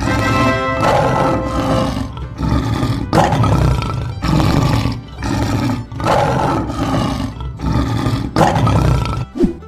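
Lion roaring again and again, loud rough roars about one a second.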